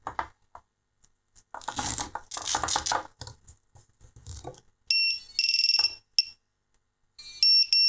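Rustling and clicking of hands handling a small FPV quadcopter as its battery is strapped on, followed from about five seconds in by a series of short electronic beeps at one steady high pitch, with another run of beeps near the end.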